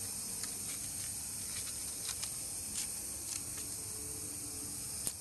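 MSR Whisperlite Universal stove running on canister gas, hissing steadily as the gas flows through the burner while it is lit. A few short ticks come through the hiss, with a sharper one near the end.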